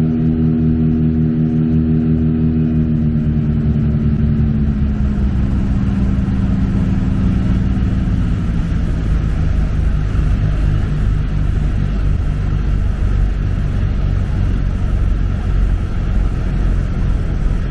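Cabin sound of a Britten-Norman Islander's piston engines and propellers, their drone falling steadily in pitch over the first eight seconds as power comes off. A heavy, rough rumble then takes over.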